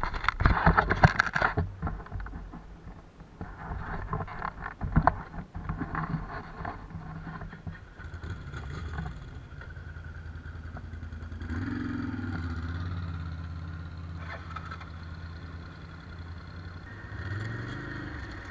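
Knocking and rustling handling noise in the first few seconds, then a quad bike (ATV) engine running steadily at idle from about halfway, its pitch rising briefly near the end.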